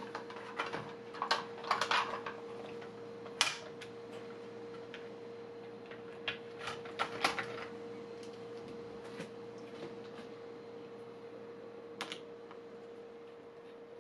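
Scattered light clicks and taps of a screwdriver and a small screw being worked on an opened laptop's chassis, bunched in the first half with one more click near the end, over a steady faint hum.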